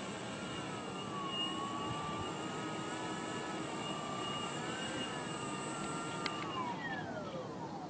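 Electric motor and propeller of a Carbon-Z T-28 model airplane whining as it taxis at low throttle, its pitch wavering up and down. A click comes about six seconds in, and then the motor spins down in a falling whine.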